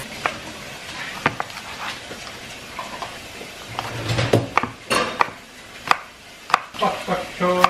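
Chef's knife chopping spring onions on a wooden cutting board: sharp, irregular knocks of the blade on the wood, coming more often in the second half, over a faint steady hiss.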